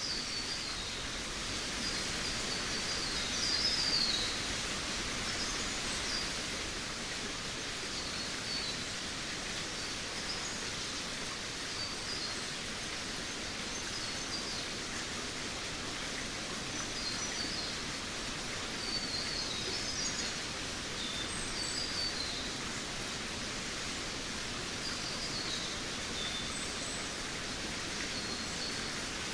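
Jungle ambience: a steady, even hiss of background noise with birds chirping in short high phrases every second or two.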